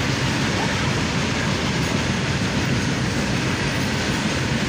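Train running on the rails: a steady rumble of wheels and cars, with no horn.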